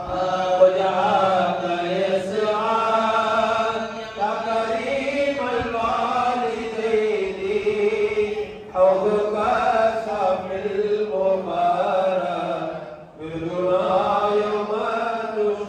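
Men's voices singing a Sufi devotional chant at the microphones of a dhikr gathering. The long melodic phrases break for short breaths about every four to five seconds.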